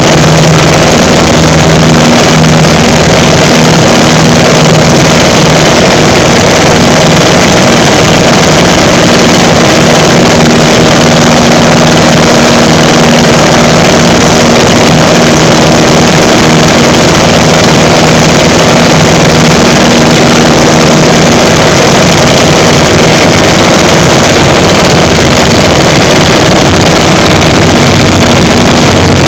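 Pietenpol Air Camper's engine running steadily at high power, with propeller and wind noise rushing past the open front cockpit and buffeting the microphone.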